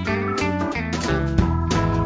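Instrumental background music: notes struck about three times a second over held bass notes.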